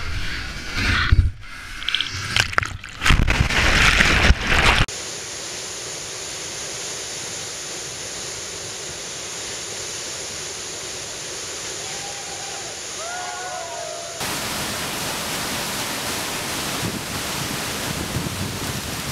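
Whitewater crashing over a kayak and a helmet-mounted camera, loud and irregular, cutting off after about five seconds. Then comes the steady rush of a waterfall, with a few short chirps near the middle and a louder, closer rush from about fourteen seconds in.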